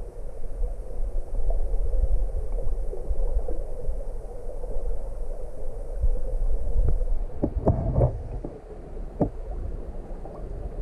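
Muffled rush of river water heard through an underwater camera housing, a steady low rumble. A few short knocks and clicks come about seven to nine seconds in.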